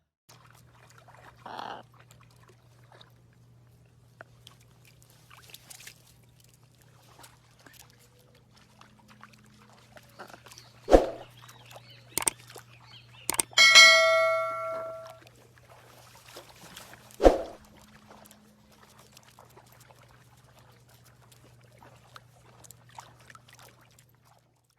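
Sparse bird-cage sounds over a steady low hum: a short bird call near the start, several sharp knocks partway through, and a brief ringing bell-like tone in the middle.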